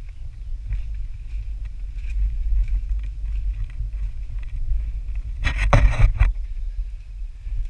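Steady low rumble of wind and handling noise on a pole-mounted action camera's microphone, carried by a hiker on foot, with a brief cluster of knocks and scrapes about five and a half seconds in.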